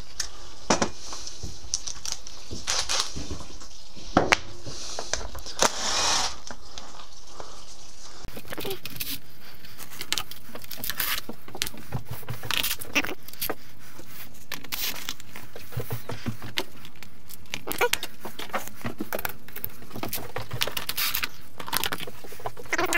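Scattered clinks, rattles and plastic scraping from hand work, with tools and bolts being handled while the plastic body panels come off a motocross bike.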